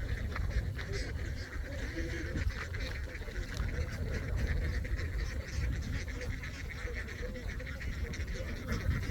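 A large flock of domestic ducks quacking and chattering together, many overlapping calls at once, over a steady low rumble.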